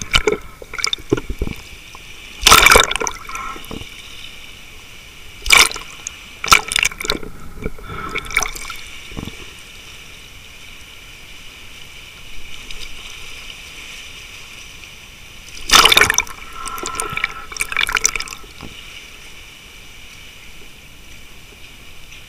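Seawater splashing and gurgling around a camera held at and just below the surface, with several loud irregular surges as waves wash through and the camera dips in and out.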